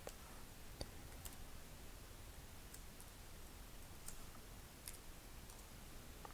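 Faint, irregular clicks from working a computer, about seven in a few seconds, over low room noise.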